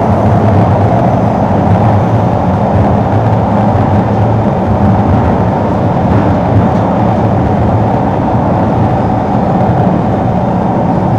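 Singapore MRT train running underground, heard inside the carriage: a steady, loud rumble of the moving train with a droning hum.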